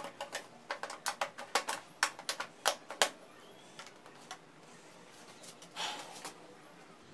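Hard plastic clicks and knocks of PVC pipe and fittings being handled and pushed together, a quick irregular run of them over the first three seconds, then sparser. A short scraping sound about six seconds in.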